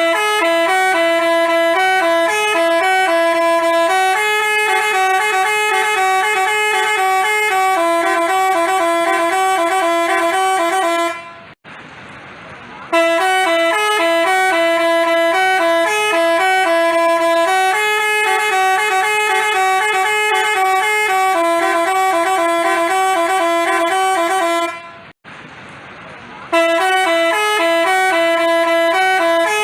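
Basuri telolet bus horn playing a jingly multi-note tune, stepping from note to note. The same phrase is played three times, with short breaks about 11 and 25 seconds in.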